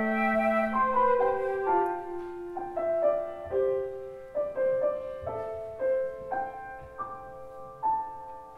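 Flutes and trombone hold a final chord that ends about a second in. A grand piano then plays on alone, single notes and chords struck one after another and left ringing, growing softer as the piece draws to its close.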